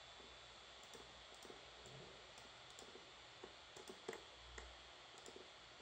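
Faint computer mouse clicks, a dozen or so at irregular moments, over a low steady hiss of room tone.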